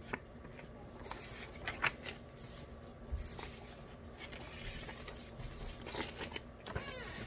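Loose sheets of printer paper rustling and sliding against each other as they are handled and sorted, in a series of short, scattered rustles.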